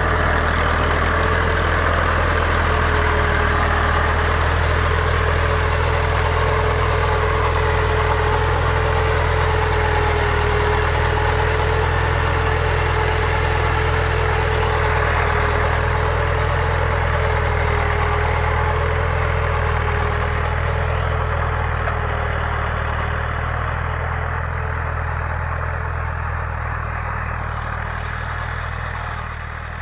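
Fiat 480 tractor's three-cylinder diesel engine running steadily under load while pulling a tine cultivator through the soil. It fades slightly over the last several seconds as the tractor draws away.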